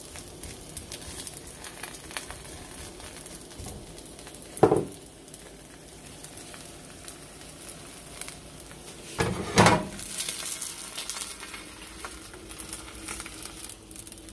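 An egg frying in a thin film of oil in a nonstick aluminum skillet: a steady soft sizzle full of fine crackles. Two louder knocks break it, about 5 seconds in and again around 9 to 10 seconds in.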